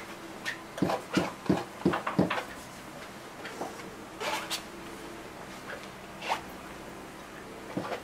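Short dry rasps of a paintbrush stroked across a stretched canvas: a quick run of about six strokes in the first couple of seconds, then a few more, spaced apart.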